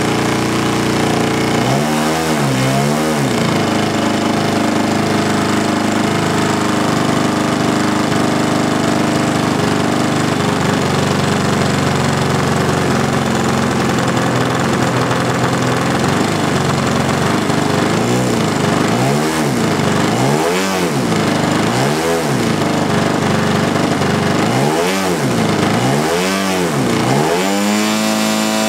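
Zenoah-built Titan 62 two-stroke gasoline engine turning the propeller of a giant-scale RC plane on a ground test run. It runs steadily, and is throttled back and opened up again in quick dips twice early on and several times in the second half, then settles at a higher steady speed near the end.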